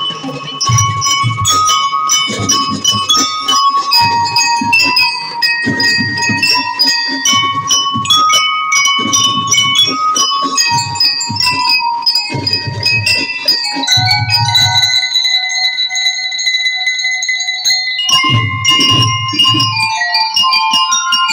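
Drum and lyre band playing: metal bell lyres ring out a melody over drum strokes. The drums drop out for a few seconds past the middle, leaving held lyre notes, and come back near the end.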